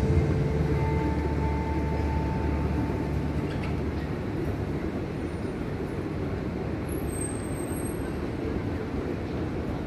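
The light show's music fading out over the first three seconds, leaving a steady low background din of outdoor noise.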